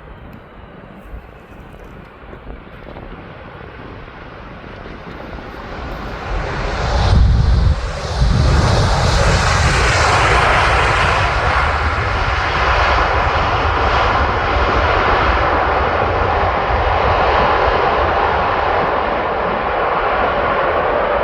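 Jet engines of a Boeing 747 freighter on final approach. The sound grows louder as the plane nears, peaks with a deep rumble about seven seconds in, then stays loud and steady as it passes.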